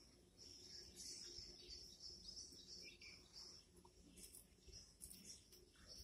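Faint outdoor ambience: scattered bird chirps over a steady high-pitched tone.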